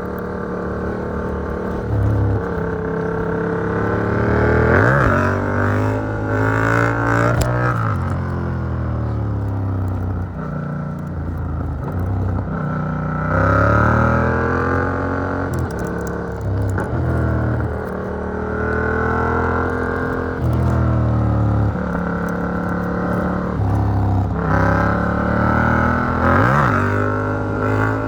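Yamaha MT-07 CP2 parallel-twin engine through an Arrow Works exhaust with dB killer, revving up hard and dropping again several times as the rider accelerates and shifts gears. It is picked up by a phone carried in the rider's backpack.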